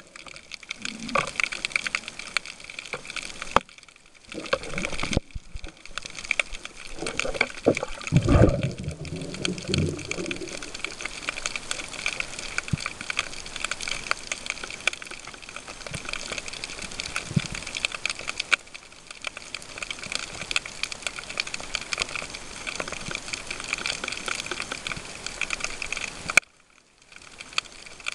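Underwater sea ambience heard through a submerged camera: a dense, steady crackle of fine clicks. A louder low gurgle comes around eight to ten seconds in, and the sound drops out briefly twice.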